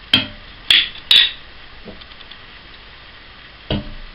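A glass jug clinking and knocking against the rim of an enamel cooking pan: three sharp knocks in the first second or so and one more near the end.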